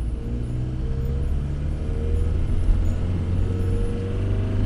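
Fiat Scudo camper van's diesel engine running while driving, heard from inside the cab, its note rising several times.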